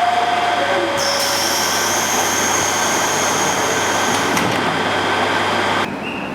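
Train door chime: a two-note electronic chime, high note then low, sounds twice at the start over steady train noise. A high steady whine joins about a second in, and the sound cuts off near the end.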